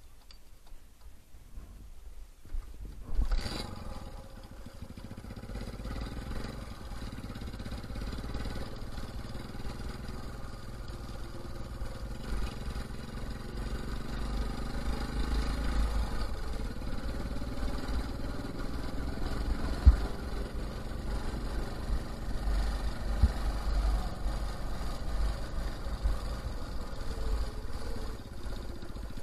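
Motorcycle engine running while the bike rides along, with a low wind rumble. The sound comes in suddenly about three seconds in and grows gradually louder. There is a single sharp knock about two-thirds of the way through.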